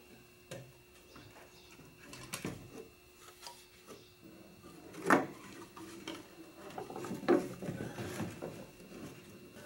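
Clunks, clicks and scraping of a fuel pump hanger flange being worked back into a fuel tank's opening by hand, with a sharp knock about five seconds in and another a couple of seconds later.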